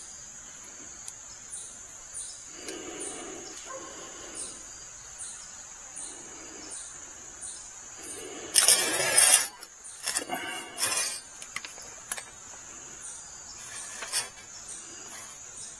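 Crickets chirring steadily, with a higher chirp repeating every half second or so. About eight and a half seconds in comes a loud rustle lasting about a second, followed by a few shorter rustles and clicks.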